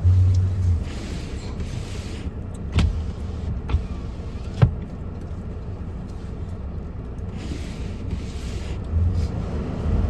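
Car driving, a steady low rumble of road noise with two spells of hiss and a few sharp knocks a little under three, four and five seconds in.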